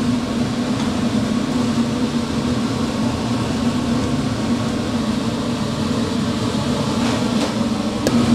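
Steady mechanical drone of a kitchen ventilation fan, with a low hum running through it and a few faint clicks near the end.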